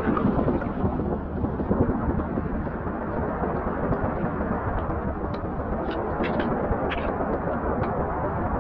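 Steady rushing of shallow seawater washing over the rocks around wading boots, with a few sharp clicks near the end.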